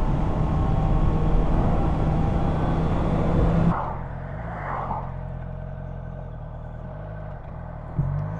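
Honda CB650F inline-four engine running steadily at road speed under a loud rush of wind. A little under four seconds in, the sound drops suddenly to a quieter engine with small rises and falls in pitch.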